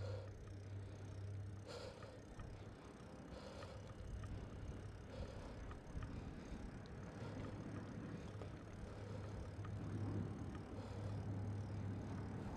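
Bicycle being ridden along a paved street: a low, steady rumble of tyres on concrete and the bike's running noise.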